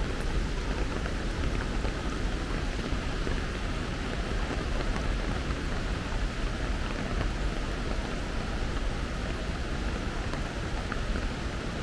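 Steady heavy rain falling, with a constant low rumble underneath.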